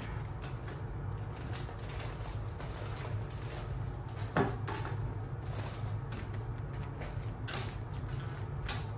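Toiletries being packed into a fabric toiletry bag: rustling and a few light knocks of bottles and tubes, the sharpest about halfway through and two more near the end, over a steady low hum.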